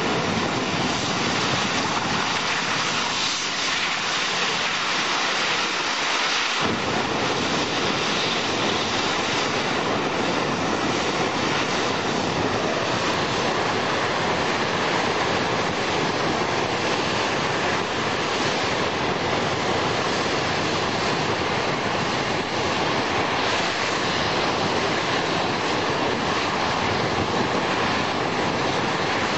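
A burning gas well jet and high-pressure water hoses make a loud, steady rushing noise. About six and a half seconds in, a deeper low rumble joins in and continues.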